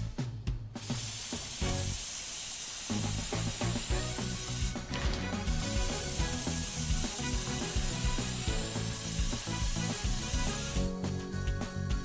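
Aerosol spray-paint can hissing steadily as it sprays paint, over light background music.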